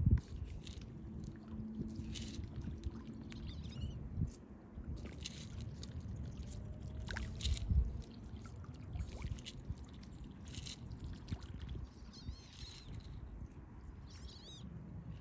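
Water splashing and lapping unevenly as turtles take food at the surface, with scattered small splashes and clicks. A few quick bird chirps come in near the end.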